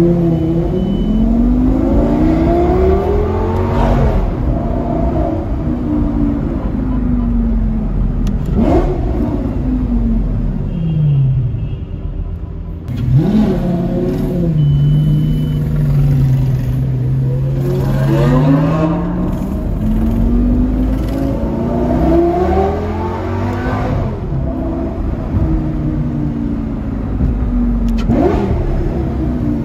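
Sports car engine revving hard again and again, its pitch climbing and then falling back. A few sharp cracks come near the top of the revs.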